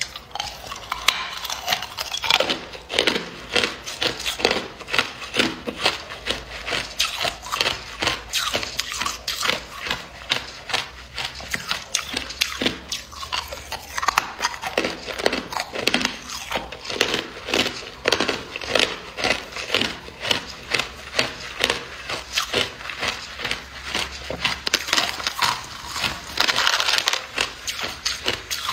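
Close-up crunching of hard, clear ice being bitten and chewed: rapid, sharp cracks several times a second.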